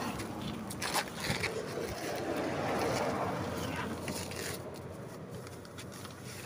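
Wind buffeting the microphone, with rustling and a few short knocks as bags are pulled off a car's back seat.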